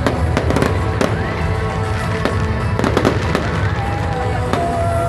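Fireworks display: a rapid, irregular series of bangs and crackling bursts, with music playing throughout.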